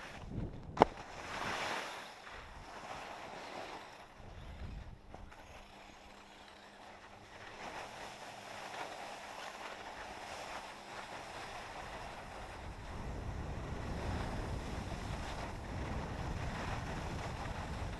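Skis sliding over snow with wind buffeting the camera's microphone, a steady rushing noise that grows louder in the second half. A single sharp click comes about a second in.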